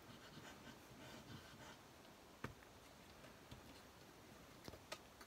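Near silence: room tone, with a few faint taps as small pieces of paper are handled and pressed into place, one midway and two close together near the end.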